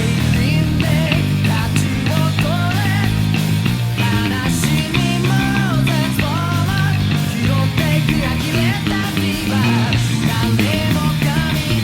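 Fast punk-rock band track with sung vocals, guitars and drums, and an electric bass played along with it, its notes steady and prominent underneath.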